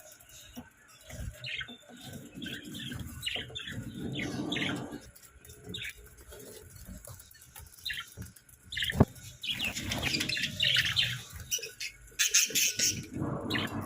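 Budgerigars chirping in many short, quick calls, with several louder bursts of wing flutter and a single sharp click about nine seconds in.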